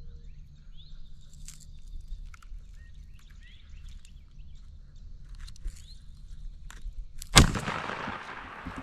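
Songbirds chirping faintly, then a single loud shotgun shot about seven seconds in, its echo rolling away: the shot that kills a wild turkey.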